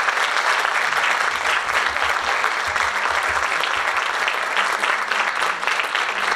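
Audience applause: many hands clapping in a steady, dense patter.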